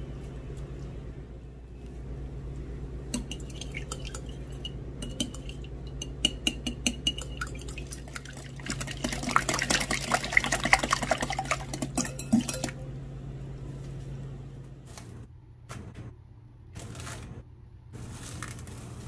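Kitchen utensils clicking and clattering against dishes, busiest for a few seconds in the middle, over a steady low hum that stops about fifteen seconds in.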